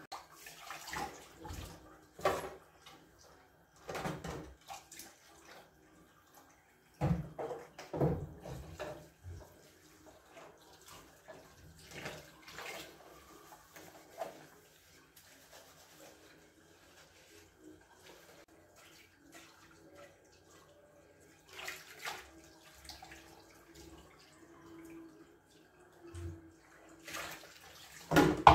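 Dishes being washed by hand at a kitchen sink: irregular clinks and clatter of crockery, pots and utensils, with splashing water.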